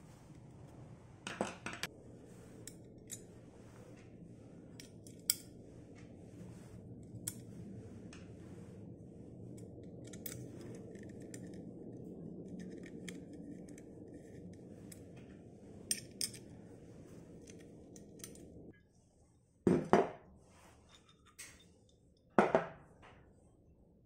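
Metal clicks and clinks of a bicycle crankset, its chainring bolts and a hex key being handled and set down on a wooden tabletop, with a few louder knocks near the start and twice near the end. A low steady hum sits underneath and cuts off suddenly about nineteen seconds in.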